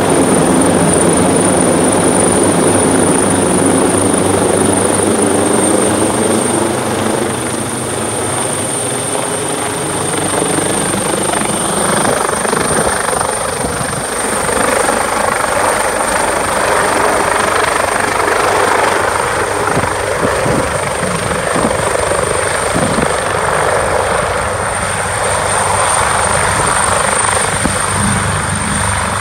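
Leonardo AW139 twin-turboshaft helicopter flying low overhead and then hovering to land, its rotor and engines running continuously with a thin high whine. The sound turns to a louder, broader rushing about halfway through as it descends.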